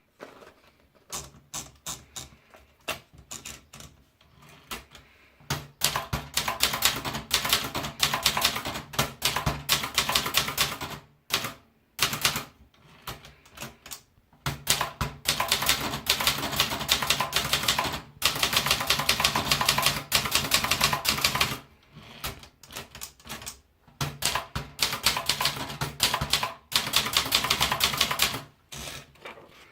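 Vendex 100 typewriter typing. It starts with scattered single key strikes, then goes into long runs of very rapid strikes over a steady low hum, broken by short pauses.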